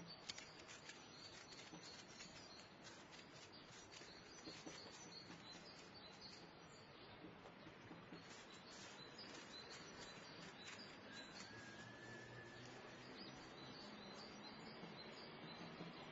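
Faint outdoor ambience: small birds chirping and tweeting at a feeder, many short high calls, over a steady hum of small-town background noise. About eleven seconds in, one longer steady note is held for a second or so.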